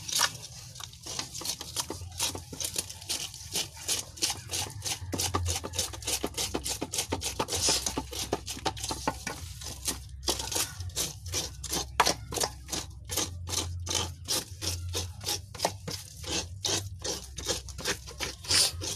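Rhythmic scraping strokes, roughly three a second, as a mudfish is scaled by hand in a metal basin: the scraper rasping over its hard scales.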